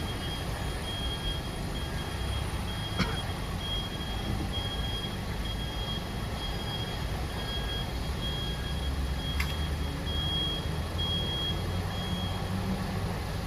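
Truck's reversing alarm beeping in one high tone, a little faster than once a second, over a diesel engine running at low speed as the truck backs up; the beeping stops near the end. A sharp click about three seconds in.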